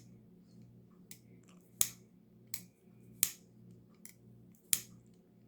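A CJRB Pyrite Light button-lock pocket knife being flipped open and closed with sharp metallic clicks. Three loud snaps of the blade come about a second and a half apart, with softer clicks between them.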